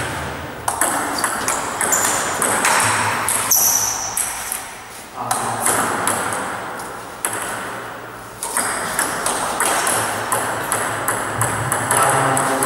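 Table tennis ball clicking back and forth off the bats and the table in quick rallies, with short lulls between points.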